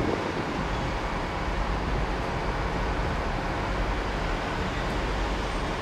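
Class 150 Sprinter two-car diesel multiple unit rolling slowly, its underfloor Cummins diesel engines running with a steady low rumble.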